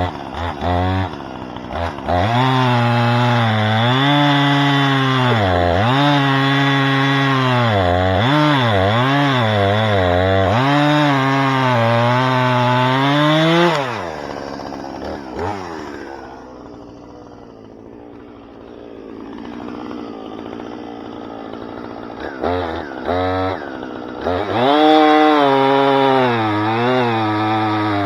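Two-stroke chainsaw cutting red oak logs into firewood rounds. The engine runs at high revs, its pitch dipping again and again as the chain loads up in the wood. About fourteen seconds in it drops back to a low idle, then revs up again near the end.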